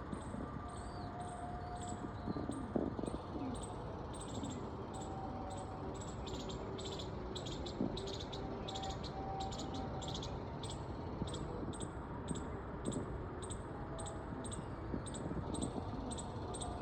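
Rapid high-pitched chirping, two to three chirps a second, that keeps on steadily over a low background noise, with a few faint short tones and knocks.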